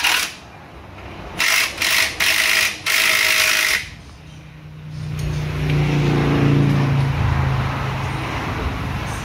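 Workshop noise during a car suspension repair: four short hissing bursts like shop air tools, then a low motor hum that swells and slowly fades.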